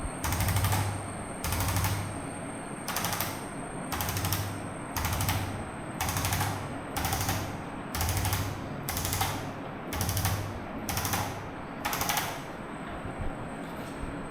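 Short bursts of rapid mechanical rattling, about one a second, each lasting about half a second, stopping near the end.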